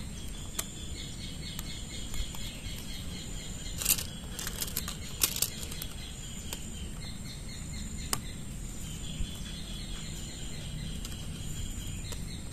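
Black plastic toy train track pieces clicking as they are joined together, with a few sharp clicks about four to five seconds in and one more around eight seconds. Insects chirp steadily in the background.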